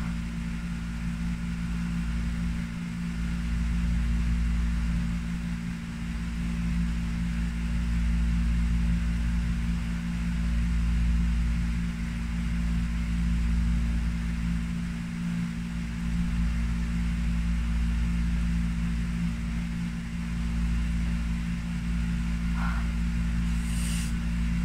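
Steady low hum of an electric motor, like a room fan running, with an even hiss over it and a faint brief sound near the end.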